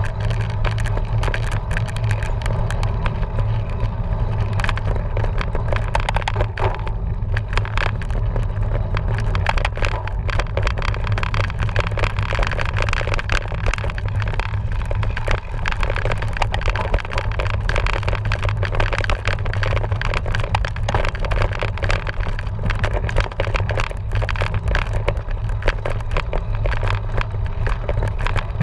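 Steady low rumble with constant irregular rattling and clicking, typical of a camera riding on a cyclocross bike over rough trail.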